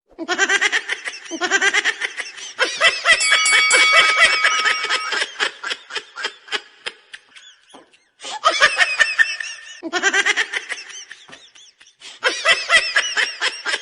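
Laughter sound effect: rapid high-pitched laughing pulses in several bouts, breaking off briefly about eight seconds in before starting again.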